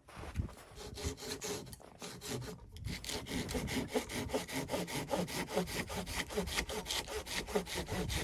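Hand saw cutting through wood. The strokes start slow and uneven, then settle into a quick, steady back-and-forth rhythm about three seconds in.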